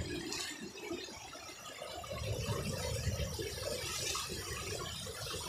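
Shallow river rapids rushing and splashing over rocks, a steady noise that swells a little about two seconds in.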